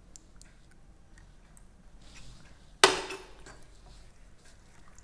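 Quiet kitchen handling while a pan of cream gravy is stirred with a silicone spatula: faint scattered clicks, and about three seconds in one sharp, ringing clank of a utensil knocking against metal cookware.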